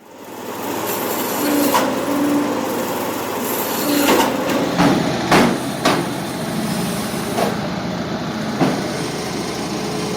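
Engine-driven firewood machine running steadily, with about eight sharp knocks of wood, clustered around the middle.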